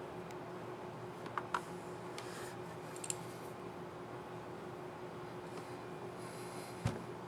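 Small clicks and light rustling from a laptop keycap and its scissor mechanism being handled, over a steady faint hiss with a low hum. A soft knock comes near the end.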